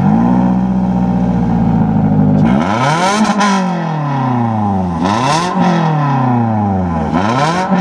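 2013 Toyota RAV4's 2.5-litre four-cylinder engine, heard at the exhaust tip, idling steadily and then revved three times with the vehicle standing still. Each rev climbs quickly and sinks back slowly.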